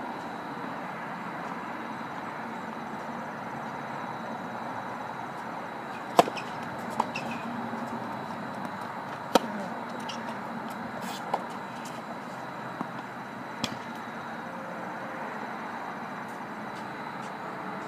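Tennis ball struck by rackets and bouncing on a hard court during a rally: about six sharp pops between about six and fourteen seconds in, the loudest two about three seconds apart, over steady background noise.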